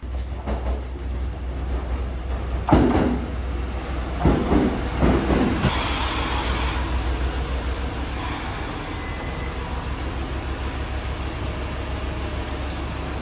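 Train running on the rails: a steady low rumble, with a few louder clatters between about three and five seconds in.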